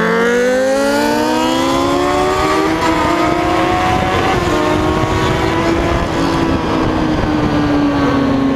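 Suzuki Bandit's inline-four engine revving through an open aftermarket Scooby exhaust pipe, with no muffler. The pitch climbs over the first three seconds or so, then holds high and slowly eases down.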